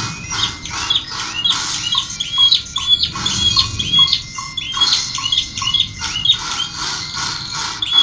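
Male domestic canary singing continuously: runs of quickly repeated short notes, each run switching to a new note every second or so, with about three to four notes a second in the slower runs.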